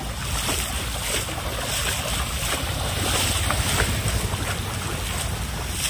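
Wind buffeting the phone's microphone: a steady rushing rumble with no clear single event.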